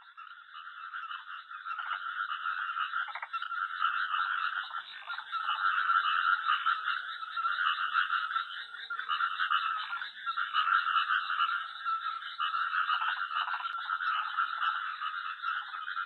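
A dense chorus of many frogs calling at once, their rapid pulsing calls overlapping into a continuous din. It fades in over the first few seconds.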